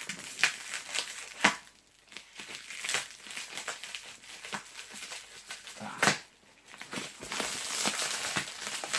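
Plastic packaging wrap crinkling and tearing as it is pulled off a parcel, in a run of short crackles with a louder one about a second and a half in and another about six seconds in.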